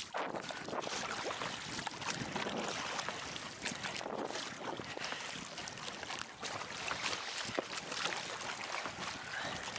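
Choppy water splashing and lapping against an inflatable rubber rowboat as it is rowed along, with wind gusting across the microphone.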